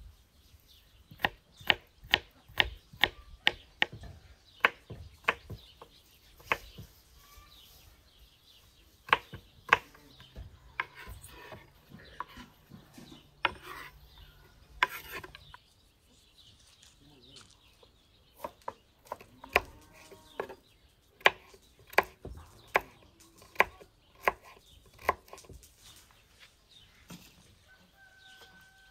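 Kitchen knife chopping onion on a wooden cutting board: sharp, irregular knocks of the blade on the board in quick runs, with pauses between them.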